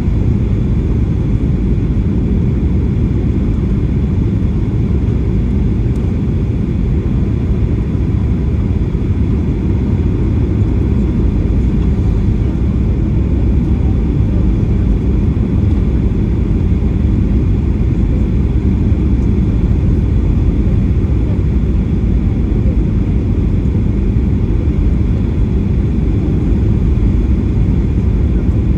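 Steady cabin noise inside a Boeing 737-800: the low rumble of its CFM56 engines and airflow, even and unbroken.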